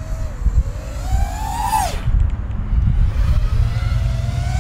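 A 5-inch FPV quadcopter on DAL F5 Fold 5.1-inch folding props flying, its motors and props whining over a low rumble. The pitch climbs for about two seconds, drops sharply, then holds steady. The props sound just like normal, non-folding props.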